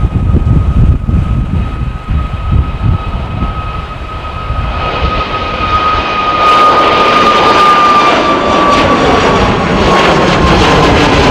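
Boeing 737 jet airliner passing: a high engine fan whine that slides slowly lower in pitch while the jet roar builds, turning loud and full about two-thirds of the way in.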